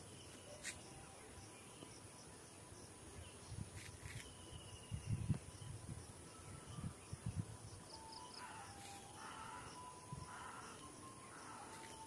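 Garden ambience: a steady high-pitched insect drone with a few short bird calls, and a run of about four harsh bird calls in the second half. Low thumps on the microphone sound around the middle.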